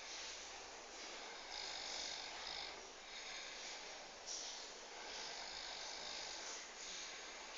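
A sleeping man snoring, one breath after another, with a sharper snort about four seconds in.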